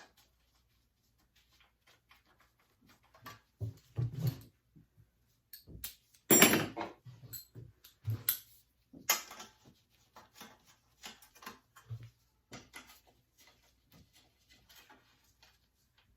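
Irregular clicks, clinks and knocks of hand tools and metal parts as bolts are tightened down on a lawn mower engine, with a louder clatter about six seconds in.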